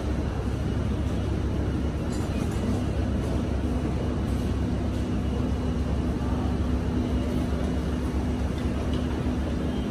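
Steady low rumble with a constant hum underneath: the background room noise of a busy restaurant, such as its ventilation.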